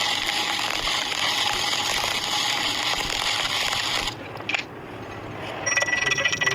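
Electric welding arc crackling and sizzling steadily, then stopping abruptly about four seconds in as the arc is broken. Near the end a different sound starts, a fast ticking with a steady high whine.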